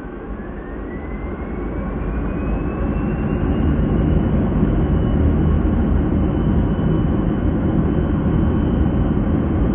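Boeing 737-300's CFM56 jet engines heard from inside the cabin, spooling up to takeoff thrust. A rising whine climbs and then levels off at a high pitch about four seconds in, while the deep rumble grows louder and then holds steady as the takeoff roll gets under way.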